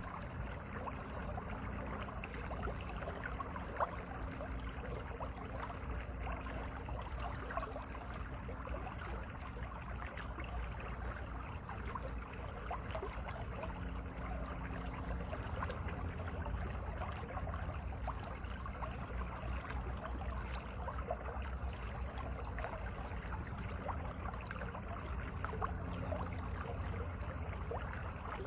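Mountain valley stream flowing: a steady rush of water with constant small splashes and gurgles over a low rumble.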